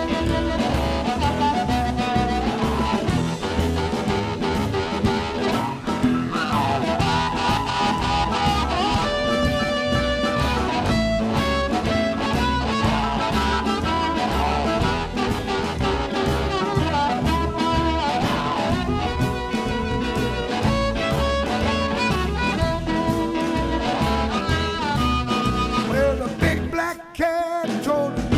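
Blues band playing an instrumental break with a steady swinging beat, with a short break in the sound near the end.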